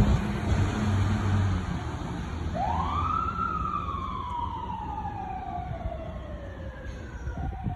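Fire engine siren sounding on an approaching fire engine: one quick rise in pitch a couple of seconds in, then a long, slow wind-down. A low engine rumble runs under it at first.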